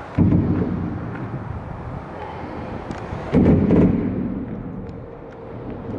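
Road traffic on the A14 bridge overhead, heard from underneath: a steady low rumble with two sudden heavy booms, one just after the start and another about three and a half seconds in, each dying away over about a second.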